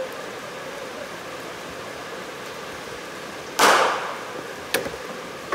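A hard cricket ball struck as a batter plays a shot in the nets: one loud knock with a short rattling tail about two-thirds of the way through, then a lighter click about a second later.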